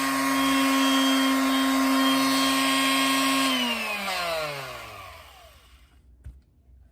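Corded electric palm sander running at full speed with a steady motor whine, switched off about halfway through and winding down with falling pitch until it stops; a small knock near the end.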